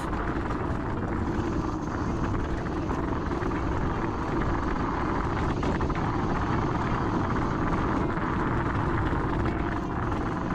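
Steady rushing wind and road noise from riding a Dualtron Thunder 2 electric scooter.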